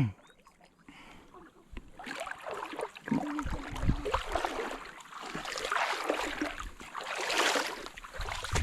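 River water sloshing and splashing around legs wading through it, in irregular surges.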